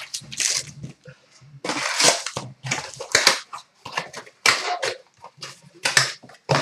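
Trading-card box and foil card packs being handled: several short crinkling, scraping rustles at irregular intervals.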